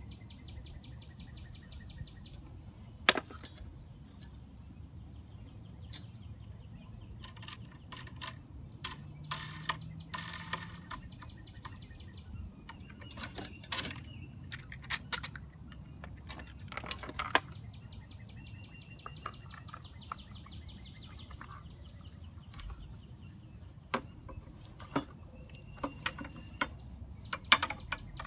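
Irregular clicks, knocks and clatters of the tiller's metal handlebar tubes and plastic handle parts being handled and fitted together, the sharpest click about three seconds in. Birds chirp in the background.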